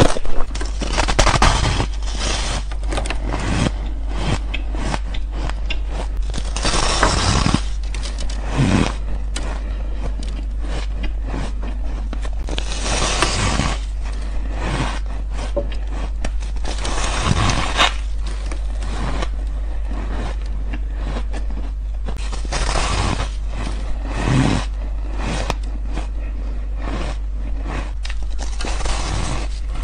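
Close-up crunching and crackling of dry, fluffy frozen ice being bitten and chewed, with louder crunching bites every few seconds. A steady low hum runs underneath.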